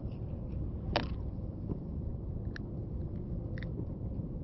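Steady low wind rumble on the microphone, with a sharp click about a second in and two fainter clicks later as a caught fish is handled and unhooked.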